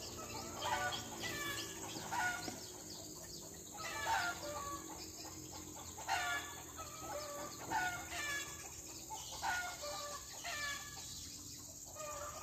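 Chickens clucking: short calls repeated irregularly, about once a second.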